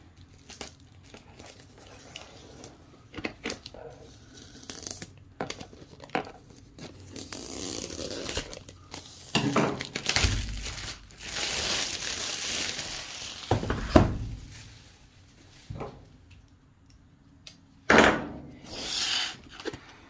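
Plastic shrink wrap being torn and crinkled off a cardboard box, with scattered handling clicks throughout. The tearing and rustling is loudest around the middle, followed by a couple of sharp knocks.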